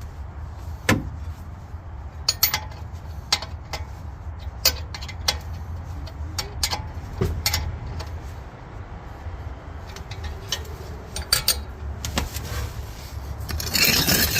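Metal hand tools clinking and tapping in scattered, irregular sharp clicks over a low steady hum, during rear trailing-arm bushing work on a car, with a louder rushing noise near the end.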